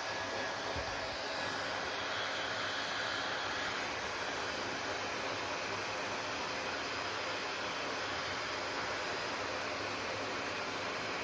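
Hair dryer running steadily: an even blowing hiss with a faint thin tone above it.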